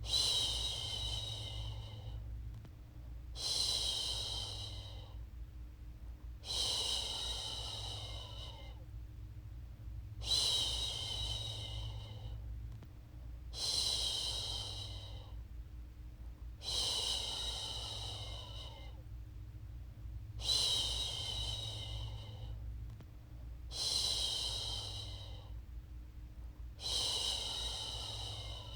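A woman shushing, a drawn-out "shhh" repeated about every three and a half seconds, each hiss lasting a second or so and fading off: a rhythmic shushing meant to soothe a baby to sleep. A steady low hum runs underneath.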